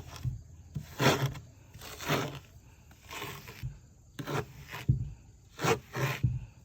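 Tile adhesive being spread and tiles pressed onto a wooden table top: a series of short scraping and rubbing strokes, roughly one a second.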